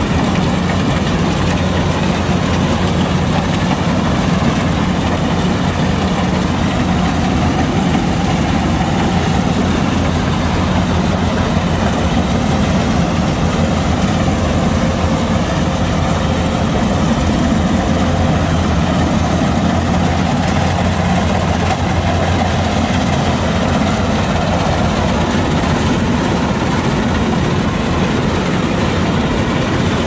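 Kubota DC-105X combine harvester running steadily at work: a deep, even diesel engine hum under a dense mechanical din.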